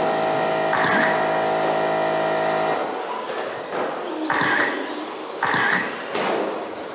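RC stadium trucks racing on an indoor track: several short bursts of noise as trucks pass and land, with a steady multi-tone hum that stops about three seconds in.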